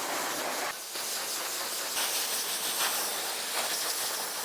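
High-velocity pet dryer blowing air through a Leonberger's thick coat: a steady, loud hiss.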